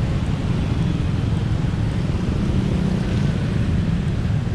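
Steady low rumble of busy city street traffic.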